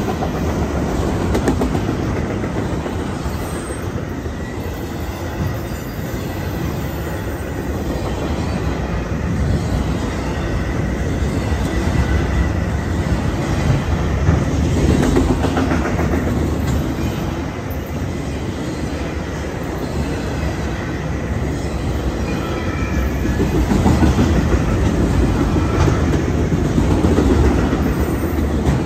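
Enclosed autorack freight cars of a CSX train rolling past, their steel wheels running steadily on the rails, with a faint high wheel squeal now and then.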